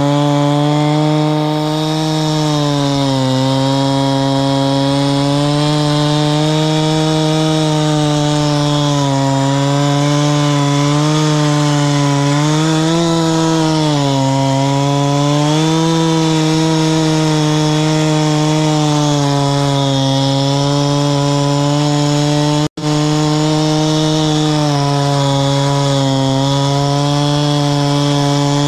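Husqvarna chainsaw in a chainsaw mill, running at full throttle as it rips along a log; its pitch dips and recovers slightly as the chain loads up in the cut. A split-second drop-out about 23 seconds in.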